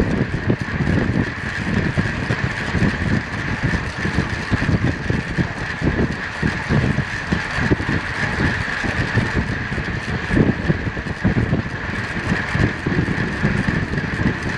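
Wind buffeting the microphone of a camera on a fixed-gear track bike riding at about 30 mph, with a steady high-pitched hum of tyres and drivetrain under it.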